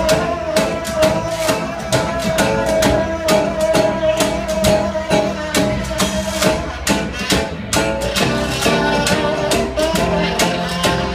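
Live small-band music: drums keeping a steady beat under upright bass and guitar, with one long held note over the first half before the melody moves to shorter notes.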